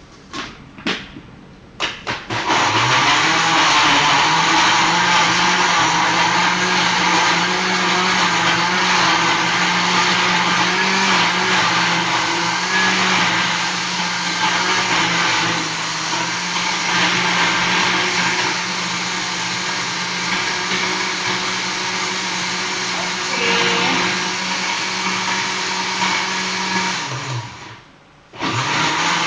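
Electric jug blender grinding chillies, shallots, garlic and spices with a little water into a wet paste. It runs at a steady pitch for about 25 seconds, then switches off near the end. A few light knocks come just before it starts, as the lid is fitted.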